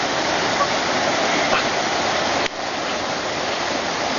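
Steady rushing water, like a waterfall or water inflow feeding the pool, with a brief dip in level about halfway through.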